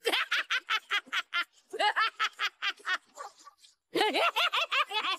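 Anime character's high-pitched laugh: rapid, evenly spaced bursts of laughter in one long run, a short breath about three and a half seconds in, then a second run.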